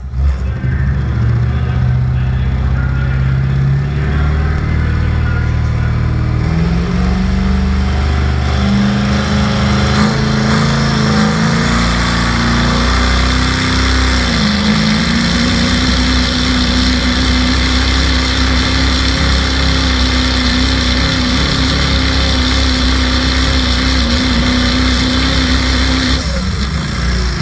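Ford 6.4 Powerstroke turbo-diesel V8 in a 2008 F-350 running at full throttle, blowing black smoke. Its revs climb in steps through the first half, dip briefly, then hold high and steady for about twelve seconds before it lets off near the end.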